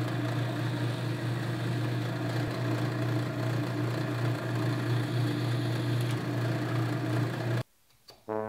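Drill press running with a steady low hum as a Forstner bit bores a recess into a wooden knob blank, to seat a nut. The sound cuts off suddenly near the end.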